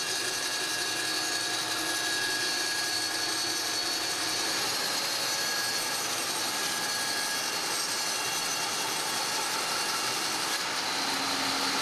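Industrial band saw resawing a thick slab of koa, the blade cutting steadily through the wood. The cut runs at an even level, a dense hiss with a steady high whine in it.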